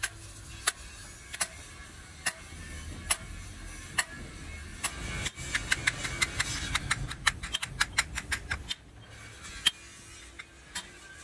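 Hammer blows on a steel drift bar driving a large spherical roller bearing on a jaw crusher's eccentric shaft: sharp metallic knocks spaced under a second apart. For a few seconds midway the knocks come faster, over a low rumble.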